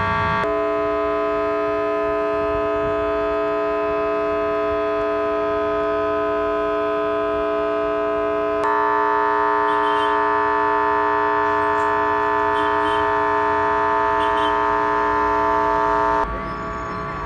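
A loud, steady street sound of several whistle-like tones held together as one chord, whose pitches jump abruptly twice. It grows a little louder at the second change, then cuts off near the end, leaving lower traffic noise.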